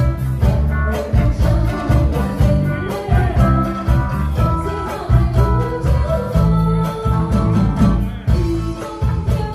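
Live band music: drums, bass and electric guitar playing a steady beat, with a woman singing over it into a microphone.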